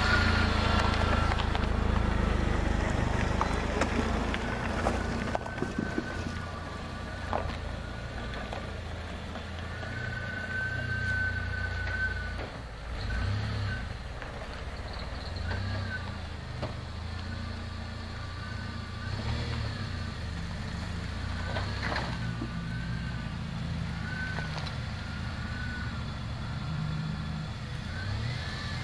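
A Jeep's engine running at low revs, loudest for the first few seconds, then settling to a steadier, quieter rumble, with a few short knocks along the way.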